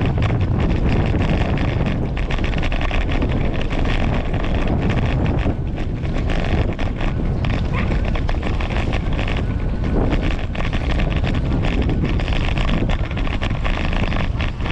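Wind rushing over the microphone of a camera on a moving bicycle, a steady loud buffeting noise.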